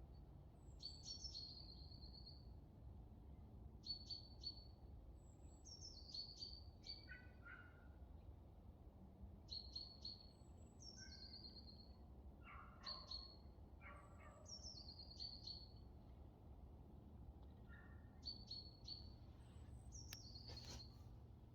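Faint birdsong: short phrases of high chirps and falling whistles repeated every two to three seconds, over a low steady rumble, with a single sharp click near the end.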